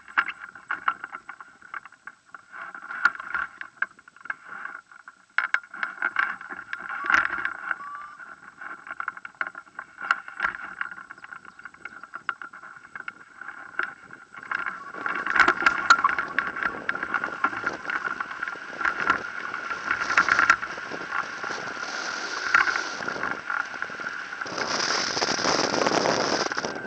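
Wind and airflow on the microphone of a hang glider, with light clicks and rattles from its frame and sail over a steady high-pitched hum. About halfway through it swells into a louder, steady rush of air as the glider runs off the hill and takes off.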